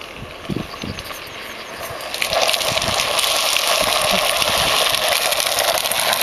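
Homemade drift trike rolling and sliding down a tarmac path, its hard rear wheels scraping the surface: a steady rushing hiss that comes in about two seconds in and stays loud.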